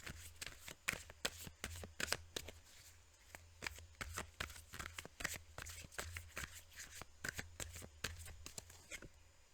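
Tarot deck being shuffled by hand: a rapid, irregular run of soft card snaps and riffles that thins out near the end.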